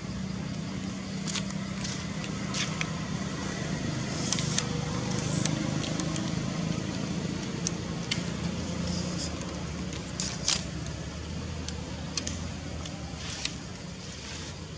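A steady low hum, like a motor running, with scattered sharp clicks and crackles over it.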